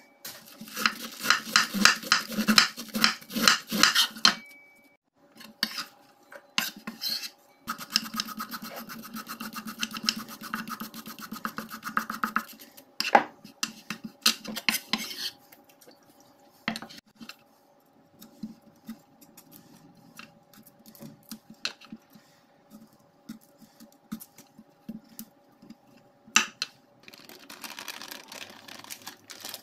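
Cabbage and carrot being shredded on a wooden chopping board, the carrot with a julienne peeler: two long runs of quick scraping strokes, then scattered knocks and clicks of utensils on the board and dishes. A soft rustle near the end.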